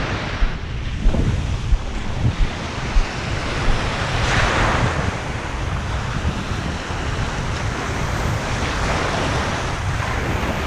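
Ocean surf washing onto the beach, with a wave breaking about four seconds in, and wind rumbling on the microphone.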